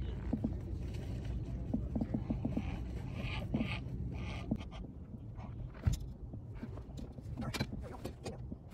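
Handling noises in a boat: scattered light clicks, knocks and scrapes as a freshly landed fish is worked on, with a sharper knock about six seconds in, over a steady low rumble.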